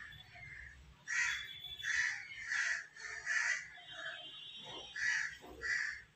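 A crow cawing repeatedly: about six short calls, each under half a second, with a pause of more than a second around the middle.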